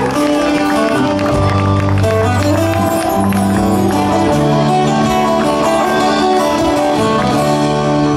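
Live band playing amplified on stage: strummed acoustic guitars over electric guitar, a bass line moving through held notes, and drums.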